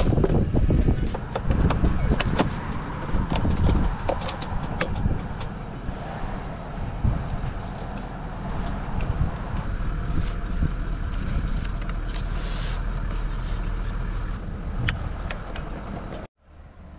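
Clicks and rattles of a tie-down strap and buckle being pulled tight over recovery boards and a solar panel on a 4WD's rear rack, over a steady low vehicle hum. The sound drops away abruptly just before the end.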